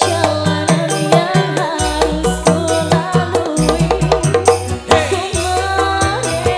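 Live dangdut band playing, with a quick percussion rhythm over a stepping bass line and a wavering melody.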